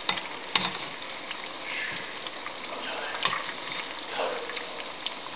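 Baby shrimp pancakes frying in hot oil in a pan, the oil sizzling steadily, with a few sharp clicks of metal tongs against the pan, the loudest about half a second in.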